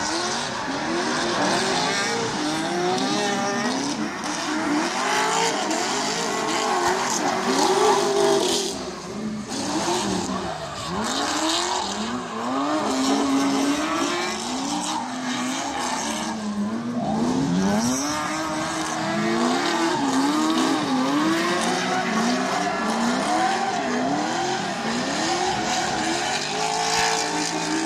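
Drift car engines revving hard, their pitch swinging up and down over and over, with tyres squealing and hissing as the cars slide.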